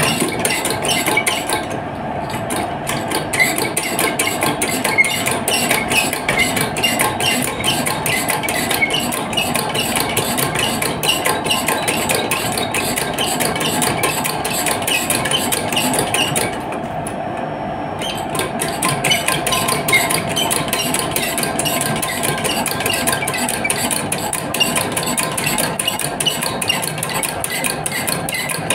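A machine running with a steady, rapid metallic clatter of evenly spaced ticks, several a second; its higher, sharper part drops out briefly about two seconds in and again around seventeen seconds.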